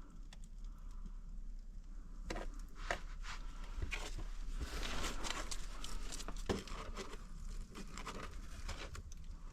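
Paper and kindling rustling and crinkling, with scattered sharp clicks and crackles, as a fire is laid and lit in a brick fireplace.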